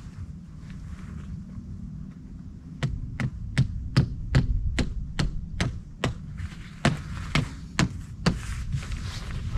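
A hiker's footsteps on the trail: sharp clicking steps about two and a half a second, starting about three seconds in and stopping near the end, over a low steady rumble.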